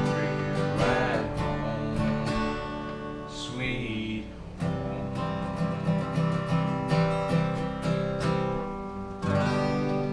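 Acoustic guitar strummed in a steady rhythm, closing out a slow, sentimental song after its last sung line. A short high sound falls in pitch about three and a half seconds in.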